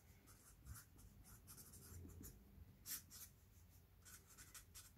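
Faint scratching of a pen writing on paper in short strokes, one a little louder about three seconds in.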